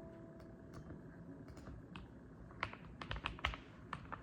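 Typing on a mechanical keyboard: irregular keystroke clicks, coming faster and louder a little past the middle.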